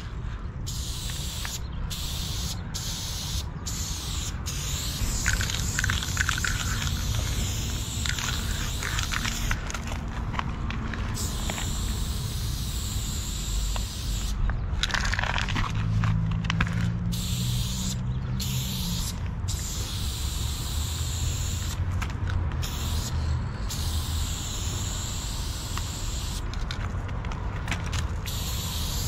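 Aerosol spray-paint can hissing in long runs broken by short pauses, as a graffiti piece is painted.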